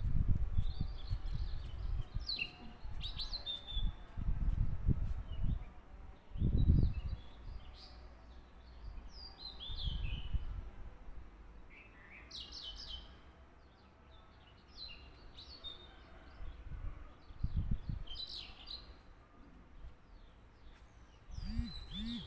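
Small birds chirping in short, scattered calls, with a few low thumps from handling on the table; the loudest thump comes about six seconds in.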